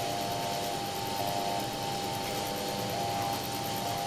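MakerBot Thing-O-Matic 3D printer running mid-print: a steady whir from its cooling fans, with a stepper-motor whine in a few pitches that starts, stops and shifts every second or so as the print head moves.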